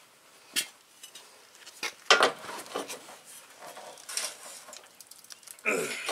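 Sharp metal clanks and scrapes as a claw hammer is levered against the steel bracket of a mower deck's roller wheel, bending the bent-down bracket back up. The loudest clank comes about two seconds in, with a longer, denser clatter near the end.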